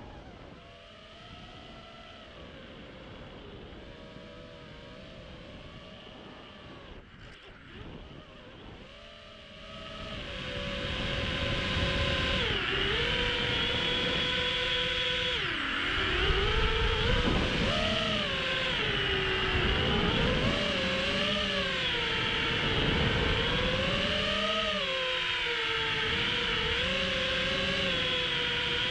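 FPV racing quadcopter's motors whining, the pitch swooping up and down with throttle changes. Fainter for the first ten seconds or so, then louder.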